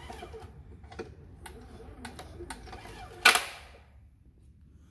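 A horizontal-shaft tiller engine ticking sharply, about two ticks a second. The engine has no compression, and the ticking comes from a valve that has lost its spring keeper. About three seconds in there is one much louder sharp clack.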